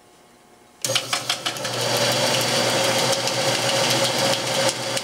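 Jet 12x36 metal lathe with a DC motor drive switched on: it starts suddenly about a second in with a few sharp clicks, then runs steadily with a hum, its spindle at about 490 rpm.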